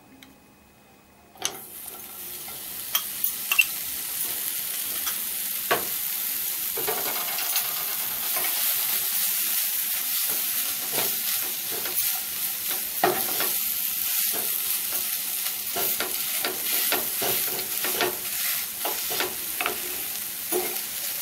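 Khoa (mawa) roasting in a hot nonstick pan: it starts sizzling suddenly about a second and a half in as it lands in the pan, then sizzles steadily while a spatula scrapes and taps against the pan, breaking it up and stirring it.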